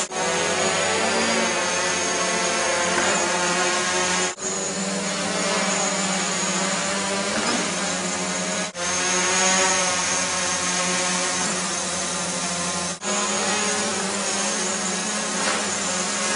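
Several small quadrotor drones hovering and manoeuvring: a steady, many-toned propeller and motor buzz with a high whine. The sound cuts out abruptly for a moment about every four seconds and resumes.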